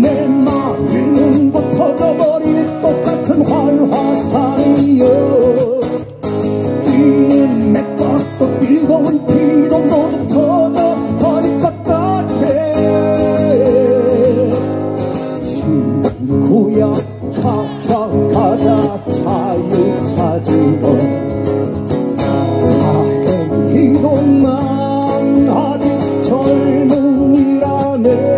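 Live music: singing over guitar accompaniment.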